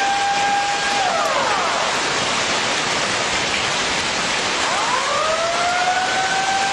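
Tsunami warning siren wailing: its tone holds steady, falls away about a second in, then rises again near five seconds in and holds. A loud steady hiss runs underneath.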